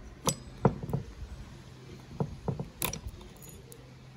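About six sharp metallic clicks and taps, two close together near the start and three more a little after halfway: needle-nose pliers working at a chainsaw's piston and wrist pin against the metal parts.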